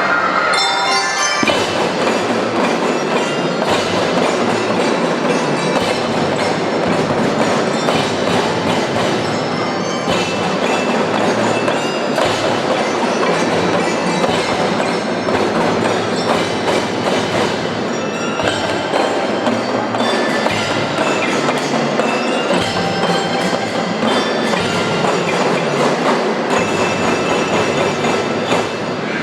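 Marching band playing continuously, with bell-lyres (glockenspiel) ringing the melody over regular drum strokes.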